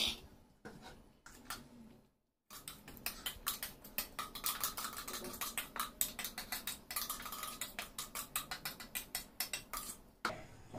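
Metal spoon scraping and tapping inside a steel mixer-grinder jar, a quick run of small clicks and scrapes, as coarsely ground masala paste is spooned out. A few knocks come first as the jar is handled.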